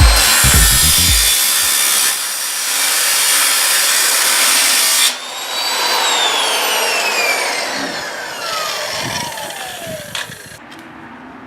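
Power saw with an abrasive blade cutting steel trim: loud, harsh grinding with a high whine. About five seconds in, the cut ends and the whine falls steadily in pitch as the blade spins down.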